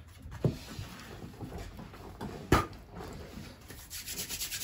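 Tarot cards being handled on a table: two sharp knocks, the louder one about halfway through, then near the end a fast, even flutter of cards being shuffled.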